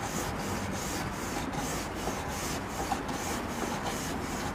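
Stainless steel wire grill brush scrubbed back and forth across metal grill grates: a steady scraping rub in regular strokes, about three a second.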